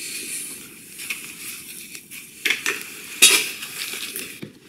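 Steel drill bits and tools being handled on a workbench: a rustling, clinking clatter with two sharper metal knocks about two and a half and three and a quarter seconds in.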